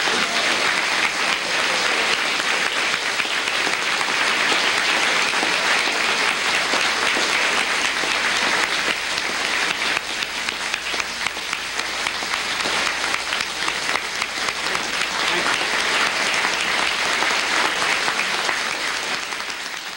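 Audience applauding steadily: dense, continuous clapping from a roomful of people.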